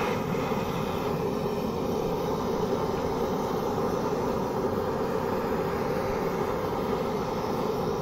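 Handheld gas blowtorch burning steadily as its flame heats the aluminium CVT crankcase cover around the bearing seat, expanding the seat so the new bearing can be fitted.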